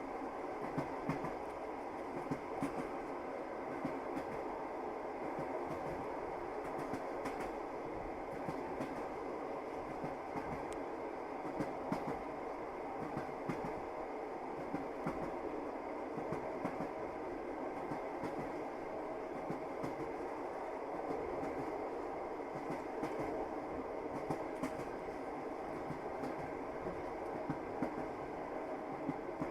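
Passenger train running at speed, heard from inside the carriage: a steady rumble of the wheels on the rails with scattered clacks over the rail joints.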